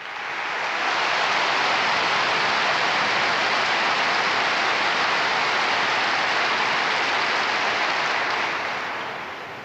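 Large crowd applauding. The clapping swells over the first second, holds steady, and dies away near the end.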